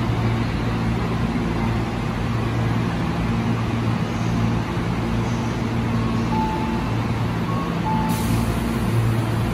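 Electric commuter train standing at the platform with its onboard equipment humming steadily. A few short beeps sound between about six and eight seconds in, and a hiss starts suddenly about eight seconds in as the platform screen doors begin to close.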